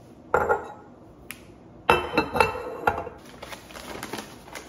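Ceramic pour-over coffee dripper and glass mason jar clinking together as the dripper is set on the jar: one clink, then a louder cluster of ringing knocks about two seconds in. After that, a paper coffee filter rustles softly as it is fitted into the dripper.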